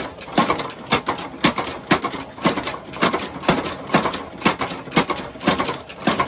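Mechanical power hammer pounding a heated plough blade, hammering out (sharpening) its edge. The blows come at an even pace of about two a second, each a sharp metallic strike with a short ring.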